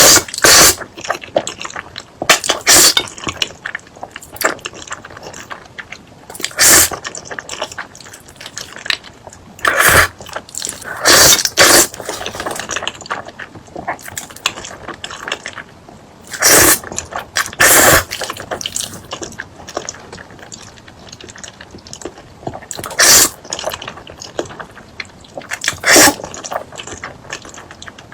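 Close-miked eating: loud bites come every few seconds at uneven spacing, with wet chewing and mouth clicks in between.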